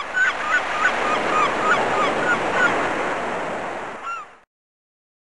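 A flock of gulls calling, many short arched cries overlapping over a steady rushing background of water. The sound cuts off suddenly a little after four seconds in.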